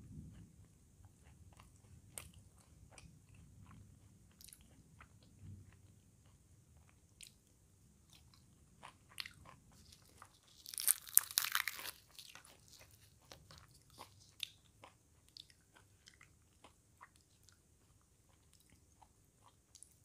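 Close-up eating sounds: soft chewing with scattered small mouth clicks. Halfway through comes a loud, crisp crackling of about a second as a fried puri is torn apart by hand.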